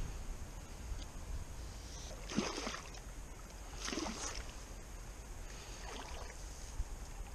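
Water splashing in three short bursts over a low rumble of wind on the microphone.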